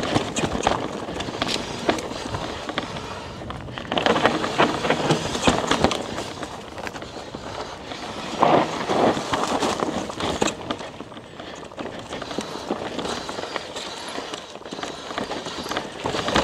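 Mountain bike tyres rolling and sliding over a loose, dusty dirt trail, with clicks and rattles from the bike over bumps and roots. It gets louder about four seconds in and again about eight seconds in.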